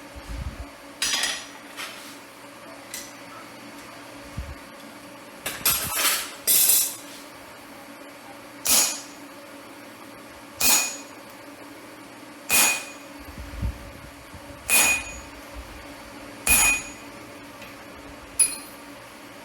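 Hand hammer striking steel on an anvil, each blow ringing metallically; a few quick blows early on give way to single blows about two seconds apart.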